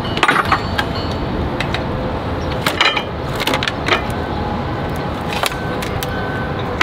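Steel Gen-Y gooseneck pin box being handled and tipped on a wooden pallet, with scattered metal clinks and knocks, over a steady low rumble.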